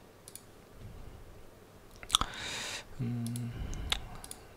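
A few single, sharp clicks of a computer mouse, spaced out, as menus and a settings dialog are opened.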